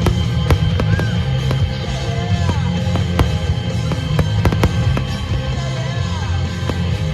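Fireworks going off in a quick, irregular string of bangs and crackles over loud music with a heavy bass.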